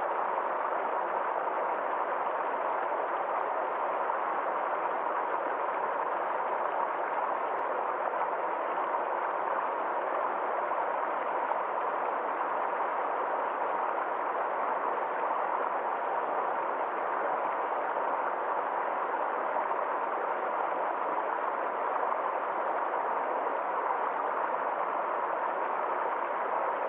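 Small stream of water flowing in an even, unbroken rush.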